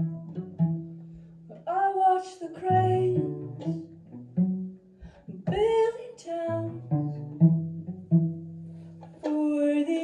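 Acoustic string band playing live: plucked upright bass notes under acoustic guitar, with a singer's voice in a few sustained, sliding phrases.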